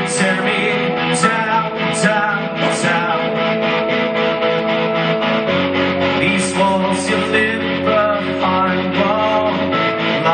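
Live band playing a rock song: guitars hold chords that change about halfway through, with a wavering melody line over them and a few bright cymbal-like crashes.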